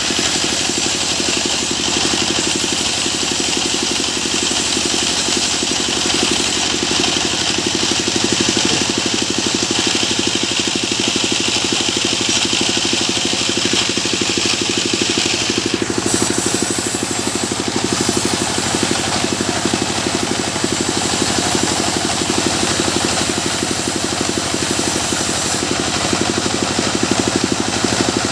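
Sawmill machine running steadily with an even engine note. A high hiss over it stops suddenly a little past halfway.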